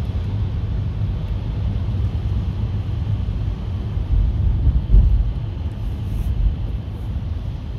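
Steady road noise inside a moving car's cabin: a low rumble of tyres and drivetrain with a haze of hiss from the wet road, swelling briefly about five seconds in.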